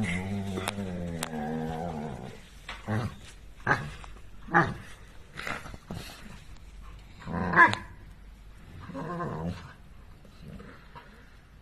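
A dog vocalising: a long, low growling moan for the first couple of seconds, then a string of short, sharp barks spread through the rest, with one more brief grumble near the end.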